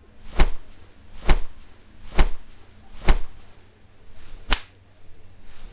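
Five sharp hand slaps. The first four come evenly about a second apart and the fifth follows a slightly longer gap. They sound like palms smacking together in repeated high fives.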